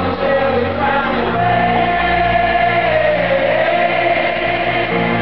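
Live stadium pop concert music: a long, held sung note over sustained band backing, amplified through the PA.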